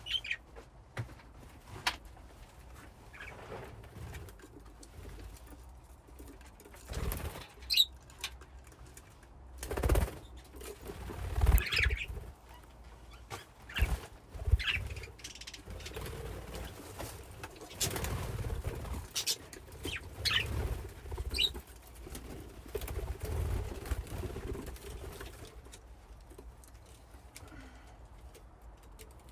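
Budgies in a colony cage: scattered short chirps, with several flurries of wingbeats and soft thumps as the birds move about the cage.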